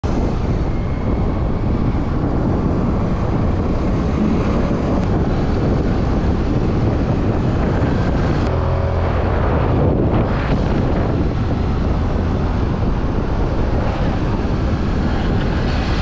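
Wind rushing over the microphone and road noise from riding along on a moving vehicle beside a motor scooter, with a steady engine hum coming through briefly around the middle.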